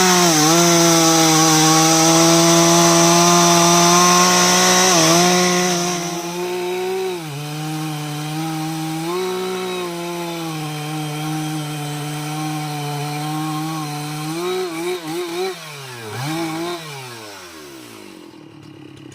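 Two-stroke chainsaw running at full throttle and cutting into aanjili wood for about six seconds. It then runs on at slightly lower revs with a few quick dips and rises in pitch, and drops away to a low idle near the end.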